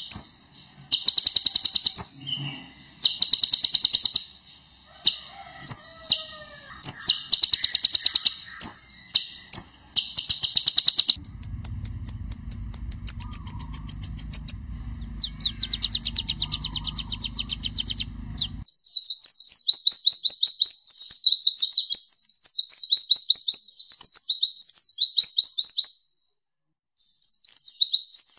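Male van Hasselt's sunbird (kolibri ninja) singing: rapid, high-pitched chattering trills in bursts of a second or two with short gaps, later running into a longer fast warble. About midway a low hum runs underneath for several seconds. Near the end the song stops for about a second, then starts again.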